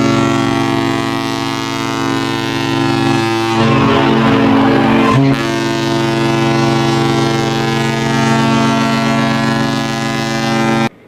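A large ship's horn sounding one long, deep, steady blast. About three and a half seconds in it turns rough and noisy for under two seconds, then steadies again. It cuts off abruptly near the end.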